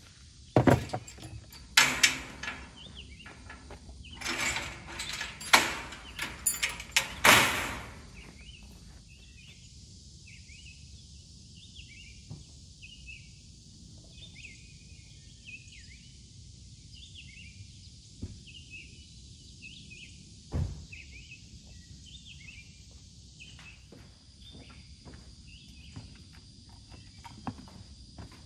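Ratchet tie-down straps being released and pulled off an ATV on a metal utility trailer: a run of loud clicks, rattles and clanks over the first several seconds. Then comes a quiet stretch with short high chirps repeating, and a single knock about twenty seconds in.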